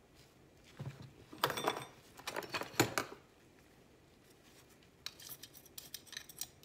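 Metal chopsticks clinking and clattering as they are picked up and handled. There are two clusters of sharp clicks, the first with a brief metallic ring, the second lighter as the chopsticks work into the soil.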